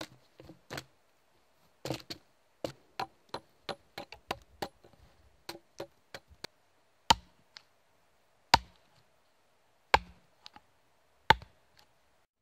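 Gerber hatchet striking a dead log: a run of lighter, quicker blows, about three a second, then four heavy chops about a second and a half apart.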